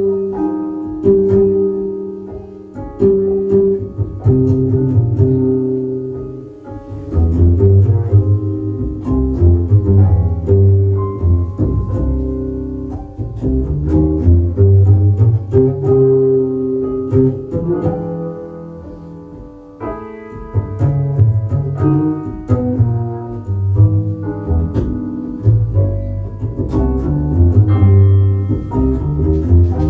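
Jazz blues played live on double bass and piano: the double bass's plucked notes lead the low end while the piano plays chords over it.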